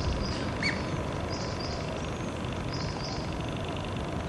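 Small birds giving several short, high chirps over a steady low background rumble.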